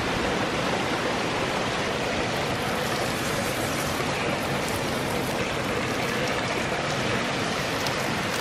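Steady rushing of running water, with faint crackling and sizzling from small pieces of fat laid on a fire-heated flat stone slab, from about three seconds in.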